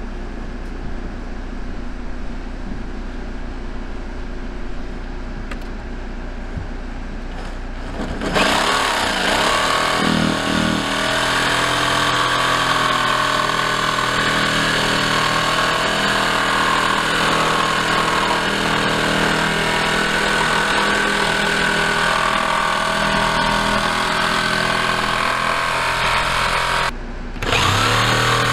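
Electric jigsaw cutting a circular hole through plywood siding. It runs more quietly for the first several seconds, then louder with a steady whine from about eight seconds in, stops briefly near the end and starts again.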